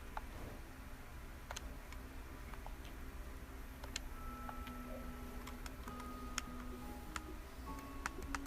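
Faint irregular clicks, roughly one a second, like tapping or typing, over a low hum and faint held tones like distant music.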